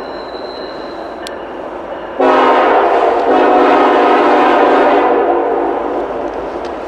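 Air horn of an approaching Norfolk Southern freight train's lead diesel locomotive, an SD70ACe, sounding one long chord for about three seconds, starting about two seconds in. Under it runs the steady rumble of the oncoming train.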